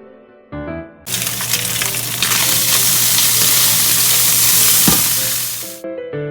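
Food sizzling in oil in a hot frying pan, loud and even, starting about a second in and cutting off abruptly near the end, with one sharp knock shortly before it stops. Piano music plays before and after the sizzle.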